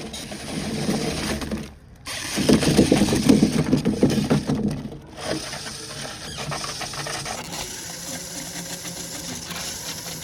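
Small electric motor of an RC monster truck whirring, in short clips broken by abrupt cuts about two and five seconds in; quieter and steadier for the last few seconds.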